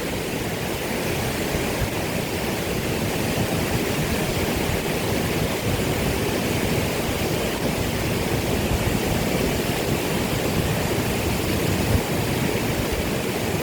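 Waterfall crashing, a steady, even rush of falling water.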